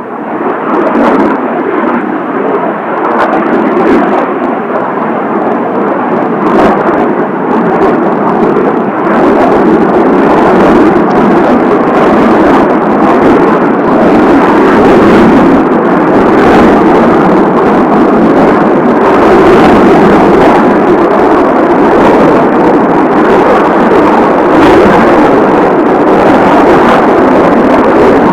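Kawasaki T-4 twin-turbofan jets running at takeoff power during a formation dirty takeoff (gear and flaps down): a loud, steady jet roar that swells up about a second in and holds. Strong wind gusts hit the microphone as brief bursts.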